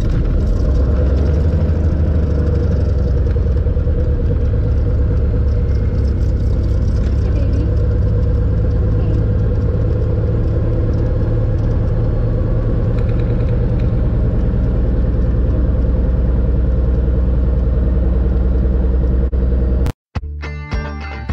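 Cessna's engine running steadily, heard from inside the closed cabin as a constant low drone. It cuts off abruptly near the end.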